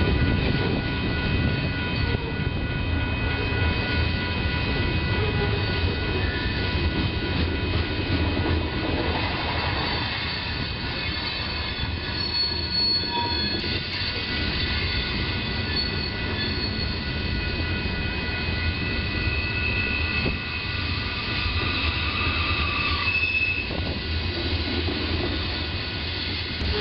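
Freight train of covered hopper cars rolling past: a continuous rumble of steel wheels on rail with high-pitched wheel squeal, several steady squealing tones held throughout and a louder squeal near the end.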